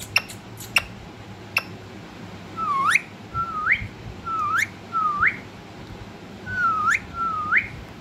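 Six short whistled notes, each dipping a little then sweeping sharply upward, spread over the second half, after a few sharp clicks in the first second and a half.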